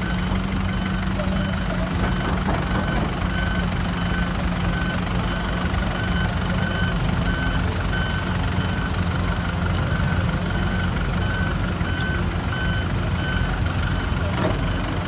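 Heavy diesel construction machinery running steadily, with a warning beeper sounding in an even pulse of about two beeps a second.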